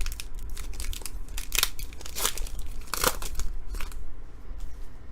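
Crinkling and rustling of a trading-card pack's foil wrapper being handled and torn open, in several short bursts that die down near the end.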